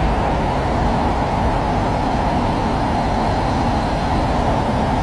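Steady noise inside a car's cabin as it drives along a flooded road, with water under the tyres and the sound of the car on the move.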